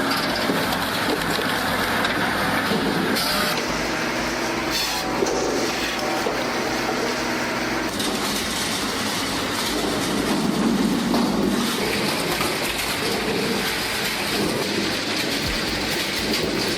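Hydraulic firewood processor at work: a steady machine hum under continuous clattering and knocking of logs and split wood.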